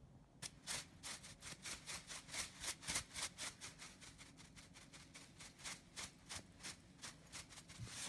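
Salt being shaken out over slices of raw fish in a bowl: a quick, even run of grainy rattling shakes, about three or four a second.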